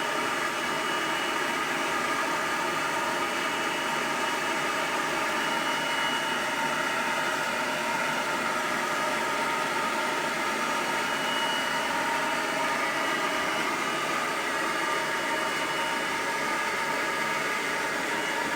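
Hair dryer blowing steadily: a constant rush of air with a thin high whine over it.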